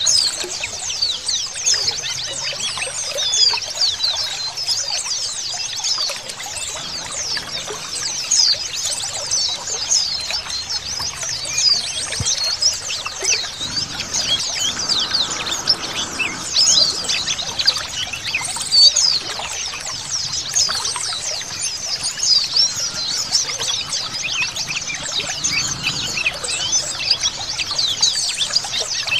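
Many white-eyes (pleci) chirping and twittering together in a dense, overlapping chorus of quick high notes, over the steady sound of trickling water.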